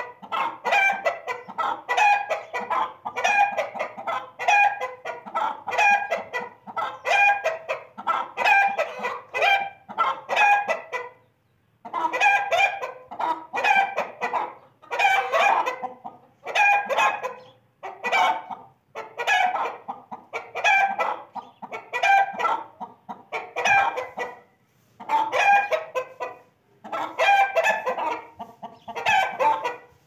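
Chicken clucking: short pitched calls repeated evenly, about three every two seconds, in runs broken by short pauses.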